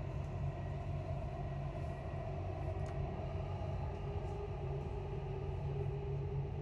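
Dubai Metro train running through an underground tunnel, a steady low rumble and hum heard from inside the carriage.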